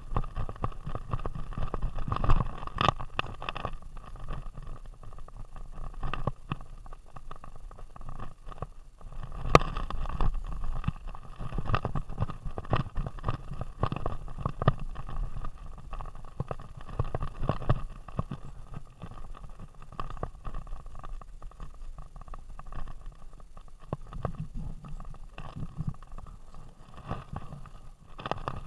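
Rumbling and knocking of an action camera jostled on a running greyhound's vest, with sharp knocks at about three and ten seconds in. A faint steady high tone sits under the noise.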